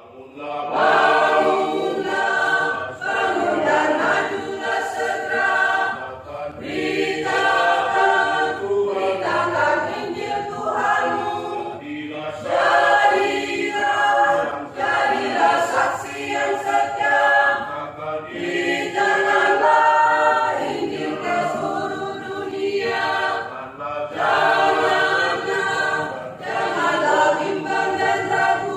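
Church choir singing, the men's voices leading off, in phrases of about six seconds with short breaths between them.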